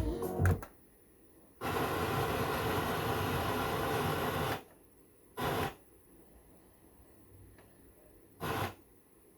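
Static hiss from a JVC RX-5060 stereo receiver: one stretch of about three seconds, then two short bursts a few seconds apart.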